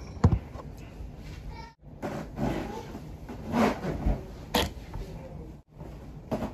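Handling noise from a phone being propped up and set in place: knocks and rubbing close to the microphone, with a couple of sharp thumps near the start and a click later on.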